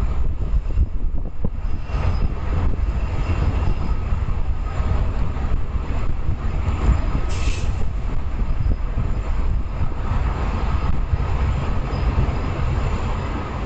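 Canadian National freight train rolling past, a steady rumble of rail cars, with a short high-pitched noise about seven seconds in.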